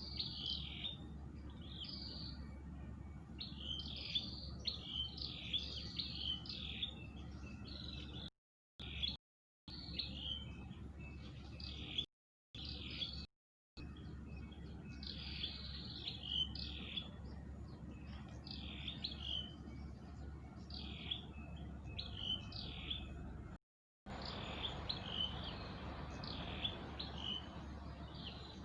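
Birds chirping: short, high, falling notes repeated in quick runs over a steady low background rumble. The sound cuts out to silence briefly several times.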